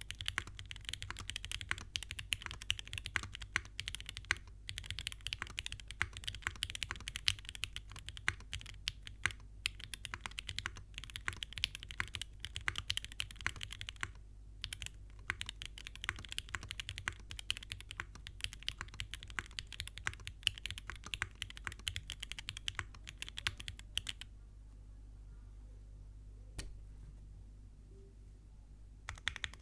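Fast typing on a Mode SixtyFive 2024 mechanical keyboard with an aluminium plate and lubed, filmed Gateron Milky Yellow Pro linear switches under GMK keycaps: a dense run of key clacks with brief gaps. About 24 seconds in the typing stops for about five seconds, with one lone key press in the pause, then starts again near the end.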